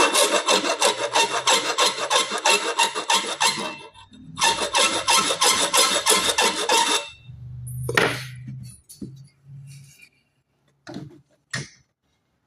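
Hand filing in rapid back-and-forth strokes, enlarging mounting holes: two spells of about four and three seconds. A single knock follows, then a couple of light clicks near the end.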